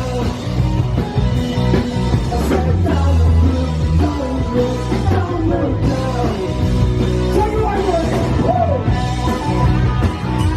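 Rock band playing live and loud, with a melodic line bending up and down in pitch over a heavy bass and drums.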